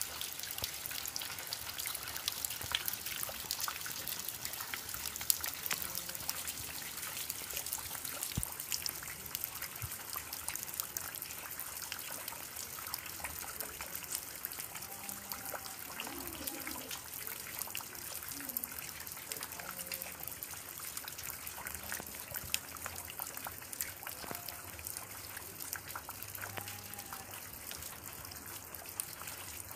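Water drops falling and splashing into shallow standing water: a dense, steady patter of many small splashes.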